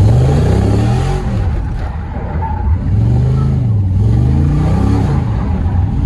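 LS-swapped Camaro Z28's V8 engine running under throttle, its revs climbing and falling three times, peaking about one, three and five seconds in.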